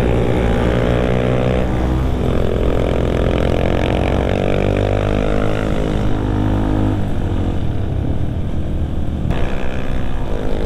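Yamaha WR155R's single-cylinder four-stroke engine running under way, its pitch rising and falling with throttle and gear changes.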